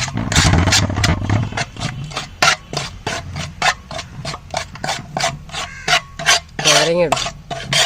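A thick masala paste of spice powders and curd being stirred and scraped round a bowl, a quick run of scraping strokes about four a second.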